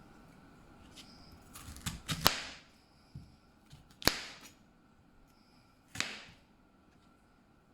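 Kitchen knife chopping a snow pear on a cutting board: three sharp chops about two seconds apart, the first the loudest, with lighter clatter just before it.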